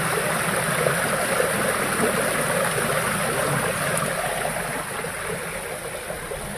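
Shallow water running steadily down a flight of stair steps, a continuous trickling rush that grows fainter over the last couple of seconds.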